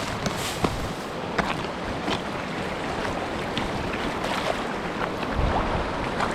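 Steady rushing of a mountain stream, with scattered sharp clicks and rustles.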